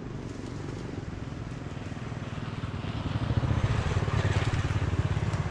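A small engine running with a fast, even pulse, getting louder from about three seconds in.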